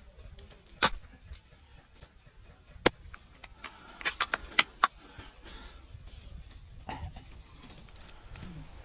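Airsoft gunfire: sharp cracks, one about a second in, another near three seconds, then a quick run of four or five shots between four and five seconds in, over low outdoor background noise.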